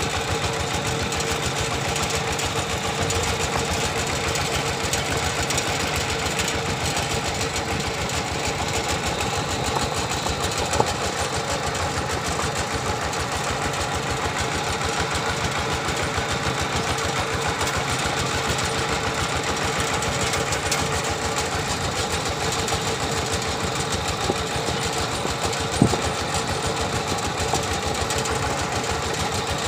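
Single-cylinder diesel engine of a two-wheel walking tractor running steadily while the tractor travels, a fast even chugging beat. Two brief sharp knocks stand out, about 11 and 26 seconds in.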